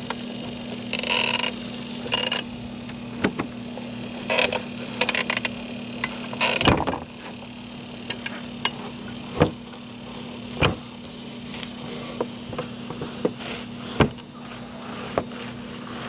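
Fish being cleaned: scattered knocks and clicks on a cutting board and short rustles of a knife cutting and scraping as the fillets are skinned, over a steady low hum.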